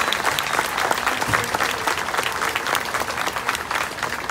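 Crowd applauding: many hands clapping densely, slowly tapering off toward the end.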